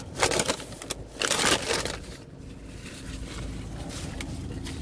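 Brown paper takeout bag rustling and crinkling as hands rummage through it, in several loud bursts over the first two seconds, then a quieter steady hum.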